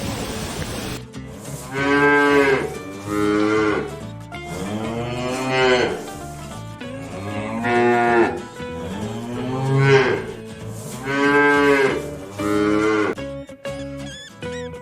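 Cattle mooing: a series of about seven drawn-out moos, several in close pairs, beginning about a second in.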